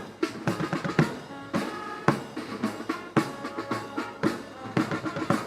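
Marching band drums playing a slow march: a heavy bass drum beat about once a second with snare drum taps between, under some held notes from the band.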